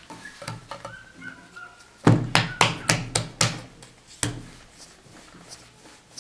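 A quick run of about six hollow thunks on a wooden worktable, then one more a second later, as pastry dough and a rolling pin are handled.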